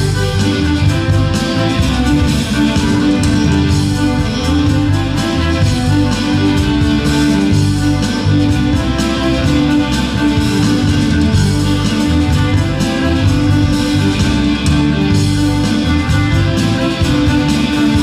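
A ceilidh band playing a tune live: fiddle over electric guitars and a drum kit keeping a steady beat.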